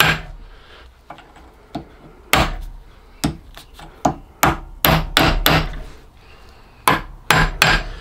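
Ball-pein hammer tapping a punch to put alignment marks on a cast steam-boiler clack valve held in a vice: about a dozen sharp metal-on-metal taps in irregular groups, with a short pause a little after the middle.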